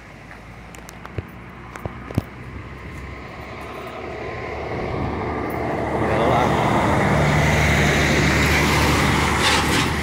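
A heavy lorry passing close on the highway: its engine drone and tyre noise swell over several seconds and are loudest from about six seconds in until near the end. There are a few sharp clicks about one to two seconds in.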